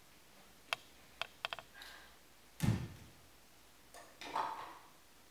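Quiet room with a few light clicks and knocks, one louder dull thump about halfway through, and a short rustle a little after four seconds as a wicker basket is taken up from the floor.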